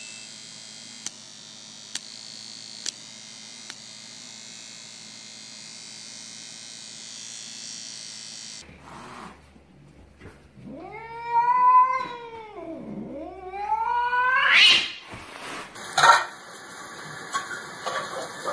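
Domestic cat yowling: two long drawn-out meows, the first rising and then falling, the second dipping low and then climbing to a high, loud end. Before them come several seconds of steady background hiss with a few light clicks.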